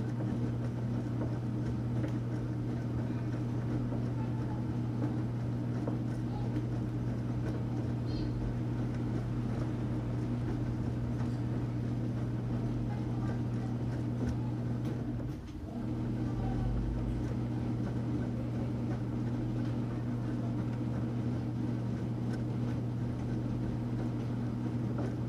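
Enxuta Luxo Soft washing machine running, its motor giving a steady low hum, with a brief dip in the sound a little past halfway.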